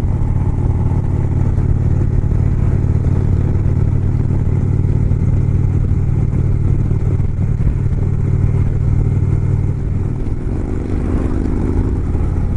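2018 Indian Springfield's Thunder Stroke 111 V-twin engine running steadily at highway cruising speed, its note shifting slightly about ten seconds in.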